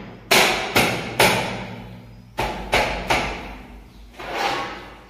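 Sharp knocks and bangs from a window frame being worked by hand: three in quick succession, then three more about a second later, each ringing on briefly in a bare room, with a softer rush of sound near the end.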